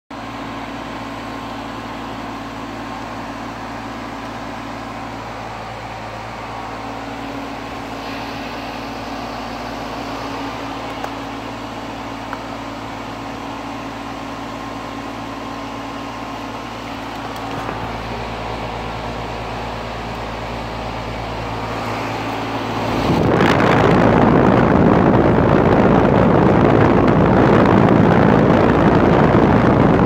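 Aire-Flo heat pump outdoor unit running in cooling mode: a steady hum of compressor and condenser fan with low steady tones. About 23 seconds in it turns suddenly into a much louder rush of air, as the fan's discharge blows across the microphone.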